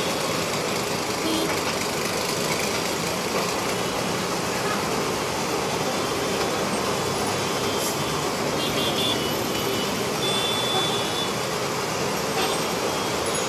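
Steady noise of heavy city road traffic: cars, buses, motorcycles and auto-rickshaws passing, with a brief high tone about nine seconds in.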